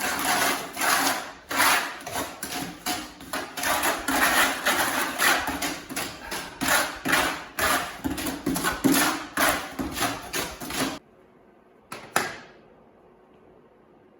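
Rhythmic scraping or rasping strokes of a hand tool, about two a second, that stop abruptly about eleven seconds in; a single short knock follows about a second later.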